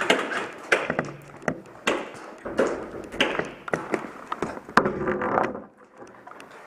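Irregular knocks and taps with a few sharper clicks among them, and a dull clatter in between.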